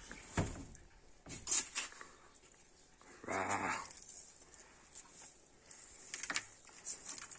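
Soft rustling and light plastic knocks as a compacted clump of dust and debris is pulled by hand from a plastic vacuum cleaner dust bin. About three seconds in, a short pitched animal cry, the loudest sound here.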